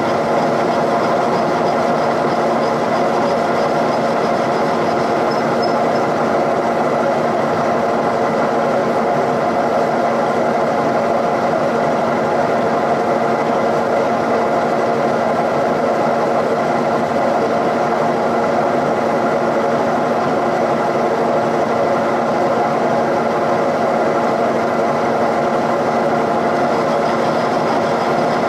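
Milling machine running with a steady, even hum, its boring bar boring out the valve port bowls of a Cummins 5.9 cylinder head.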